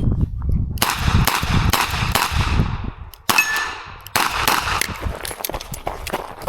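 Revolver shots fired in a rapid string at an IPSC stage, mixed with metallic clangs of steel targets being hit; a short break about three seconds in, then the shooting goes on.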